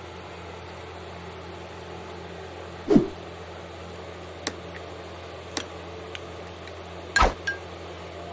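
Metal fork clinking and knocking against a cut-glass bowl about six times while chopped chicken and vegetables are tossed. The loudest knocks come about three seconds in and again near the end. A steady low hum runs underneath.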